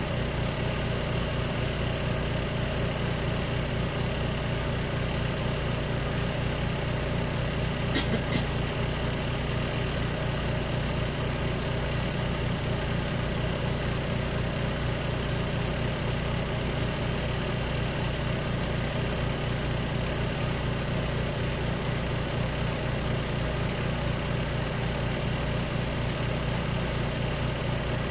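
Spin dryer of a compact RV washing machine running steadily, a motor hum with an even, rapid low rumble. A single short click sounds about eight seconds in.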